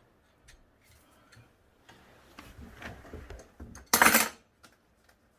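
Hand tools and small hard parts clinking and clicking as the toilet's bolt covers are taken off, with one loud, short clatter about four seconds in.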